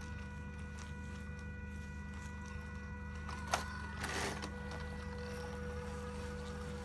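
Small electric motor whirring steadily with a constant whine, a sharp click about three and a half seconds in and a brief rustling burst just after.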